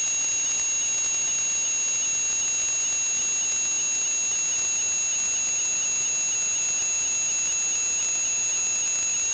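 Steady high-pitched whine made of several fixed tones over a constant hiss, with a faint regular flutter on the lowest tone.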